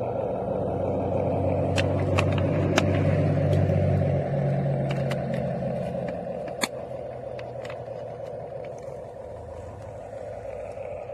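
Small electric motors of a toy remote-control dump truck running as it drives, a steady whine with a low rumble that is louder for the first four seconds and then fades. Scattered sharp clicks and scrapes come from the wheels and body on the ground.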